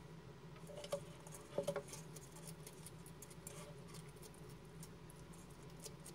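Bearded dragon crunching its food, a mix of red cabbage and feeder insects, in small crisp clicks. One sharp click comes about a second in, then a quick triple of louder crunches, then fainter rapid crunching.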